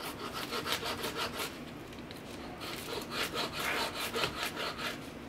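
Kitchen knife slicing green onions against a paper plate: quick runs of short cutting strokes, with a break of about a second partway through.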